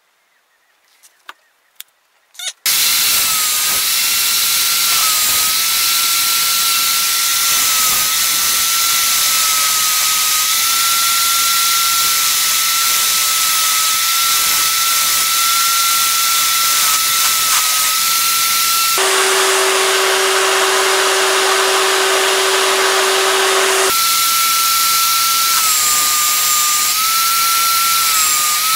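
Angle grinder fitted with a sanding disc and clamped in a vise, running steadily after a few light clicks, starting about two and a half seconds in. A laminated brass, copper and cherry handle block is sanded against it, and its whine wavers slightly in pitch under the load. For about five seconds in the middle, a different steady hum with a lower tone takes its place.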